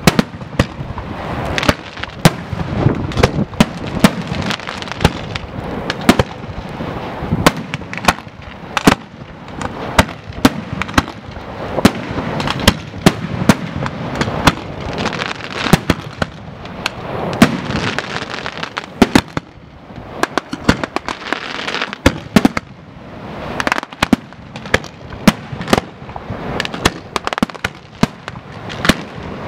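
Fireworks display: a dense, continuous run of sharp bangs and crackling reports, several a second, easing briefly about two-thirds of the way through before picking up again.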